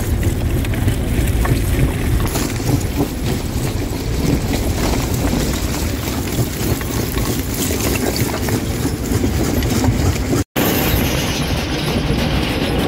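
Stone crusher crushing rock: a steady heavy machine rumble under a dense crackle of stones knocking and breaking. The sound cuts out for a split second near the end, then goes on.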